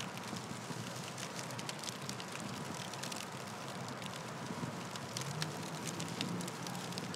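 Steady crackling hiss, full of small irregular clicks.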